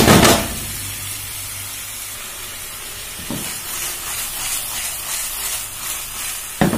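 Minced beef and chopped onion sizzling in a frying pan, a steady hiss. A spatula stirs and scrapes loudly at the start, then the pan is shaken on the burner, with a small knock midway and a sharper knock near the end.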